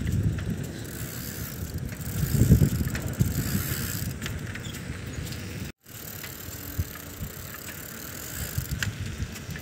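Bicycle riding along a paved road: steady tyre and running noise with a low rumble that swells briefly about two and a half seconds in. The sound cuts out completely for a moment a little past halfway.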